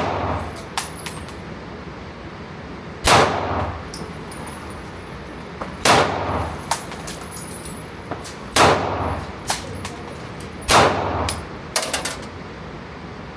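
Gunshots fired one at a time, a shot about every two and a half seconds, each with a short ringing tail. Small sharp clicks fall between the shots.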